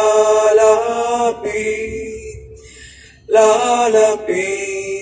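A man singing a Filipino gospel song into a handheld karaoke microphone. He holds one long note, it fades away, and the next sung phrase begins about three seconds in.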